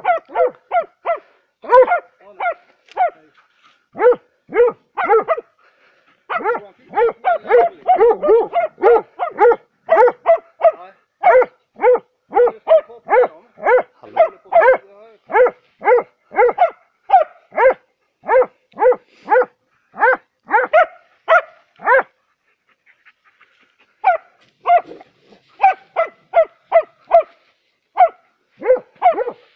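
Hunting dogs barking steadily at a badger at its den, about two barks a second with a short break late on: bay barking, the sign that the dogs have found and are holding the badger.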